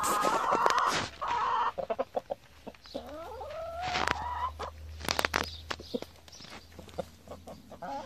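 Domestic chickens clucking and calling, with one long rising call about three seconds in and a few sharp clicks around five seconds in.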